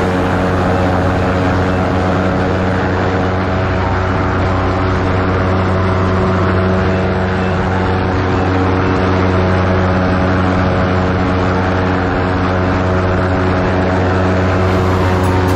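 Ultralight aircraft's engine and propeller droning steadily in cruise flight, with wind rushing over the microphone in the open seat.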